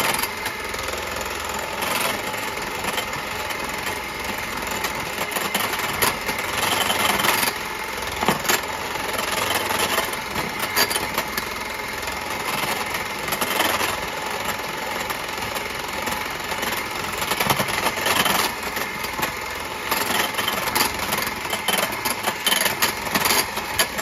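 Electric hand mixer running steadily, beating egg whites with the yolk just added into a batter for chiles rellenos, its beaters clicking against the bowl now and then.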